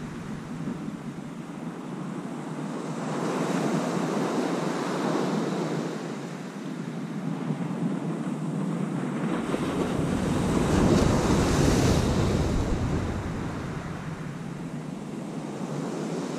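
Sea surf breaking and washing up a sandy beach, swelling and fading twice, loudest about ten to twelve seconds in, with wind gusting on the microphone.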